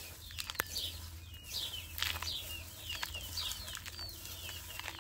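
Birds chirping over and over, short falling chirps several times a second, with a few scratchy strokes of a twig broom sweeping cut grass over dry ground.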